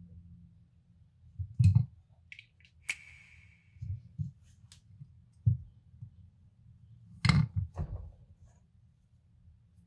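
Chocolate truffles and a knife handled on a ceramic plate: scattered soft taps and clicks, one with a brief ring about three seconds in, then a cluster of crackles near the end as the knife cuts through a praline truffle's chocolate shell.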